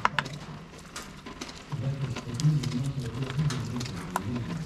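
Knife blade scraping the scales off a lionfish on a plastic cutting board: a run of short, irregular rasping scrapes and clicks.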